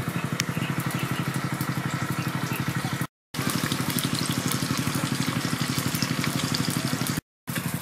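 A small engine running steadily, a fast, even pulse of about twelve beats a second, cutting out briefly twice, about three seconds in and near the end.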